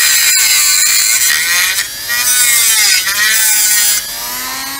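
Handheld rotary tool with a cut-off wheel whining at high speed as it cuts notches into a plastic truck grille; its pitch sags and climbs back as the wheel bites into the plastic. About four seconds in it eases to a quieter, steadier whine.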